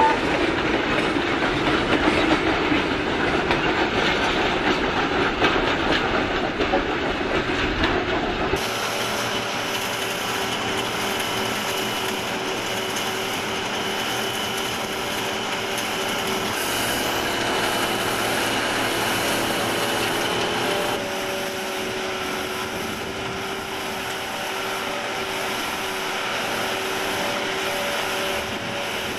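Loaded sugar-cane wagons of a steam-hauled train rolling past, their wheels running over the track. After a sudden change about eight seconds in, a sugar-cane harvester's engine runs with a steady drone as the machine cuts and chops cane.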